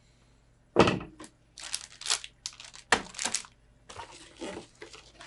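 A single loud thump, then a few seconds of crinkling and rustling as packaging and accessories are handled in an opened motherboard box.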